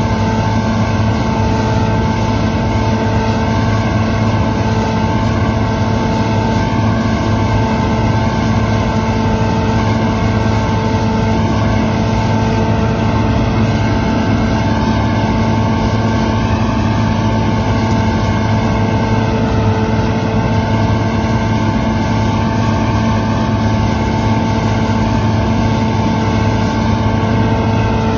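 CLAAS Lexion combine harvester running steadily: a constant engine drone that holds one pitch throughout.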